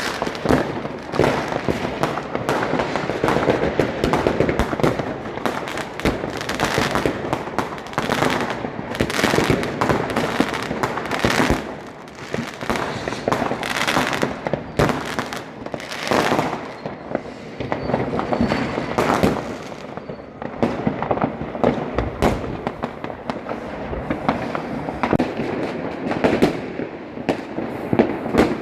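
Fireworks going off: a dense, continuous run of overlapping bangs and crackles with no pause.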